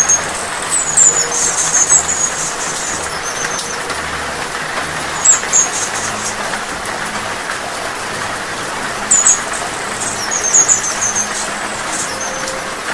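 Hummingbird giving scattered clusters of short, very high, squeaky chirps over the steady hiss of falling rain.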